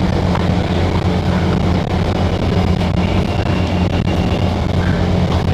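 Steady low hum and rumble inside a Singapore MRT train carriage.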